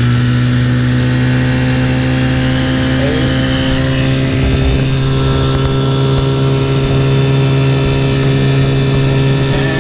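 1975 Johnson Sea-Horse 6 hp two-cylinder two-stroke outboard motor running at full throttle, its engine note held steady at a constant pitch after opening up.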